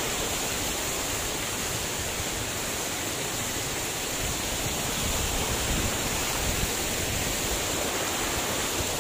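Steady rush of a tall waterfall, about 120 ft high, falling onto rocks.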